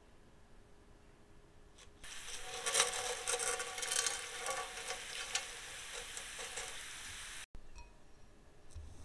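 Hot olive oil with sliced garlic sizzling and crackling in a frying pan as dry spaghetti is laid into it. The sizzle starts suddenly about two seconds in and cuts off abruptly near the end.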